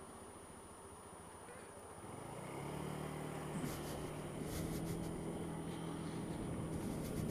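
Honda Dio scooter engine idling quietly, then pulling away about two seconds in. Its note rises into a steady hum as the scooter moves off.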